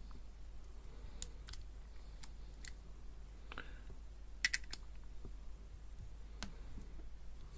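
Small, sharp, irregular clicks and ticks of metal vape tank parts being handled and the top cap screwed onto a Geek Vape Aegis tank, the loudest a quick pair about halfway through.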